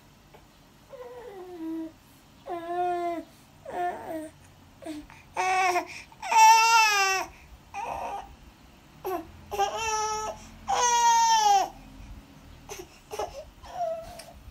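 A baby fussing and crying in a string of short wails, many of them falling in pitch, the loudest in the middle and again a few seconds later.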